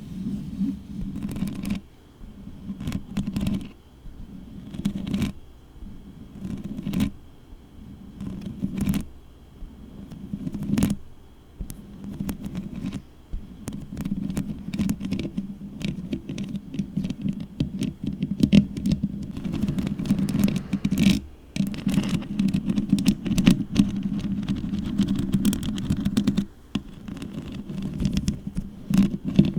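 Long fingernails scratching and rubbing directly on a microphone, close-up with a deep rumble and crackly clicks. Slow strokes come about every two seconds at first, then turn into dense, continuous scratching from about halfway.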